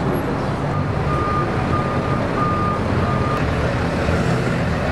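A tow truck's reversing alarm beeping, a steady series of high beeps about every half second over the truck's engine running, the beeps stopping about three and a half seconds in.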